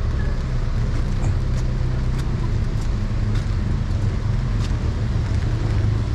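Steady low rumble of city street traffic, with a few faint ticks scattered through it.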